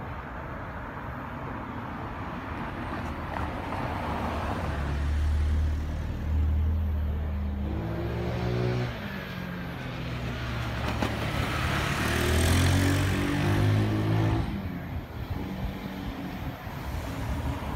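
Jet airliner taking off: an engine roar that builds over several seconds, with tones that slide down in pitch as it passes, loudest a little past the middle, then falling away fairly quickly.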